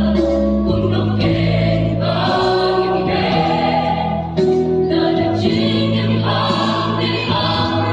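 Mixed choir of men's and women's voices singing a sacred choral piece in parts, on long held notes, with a short break between phrases about four seconds in.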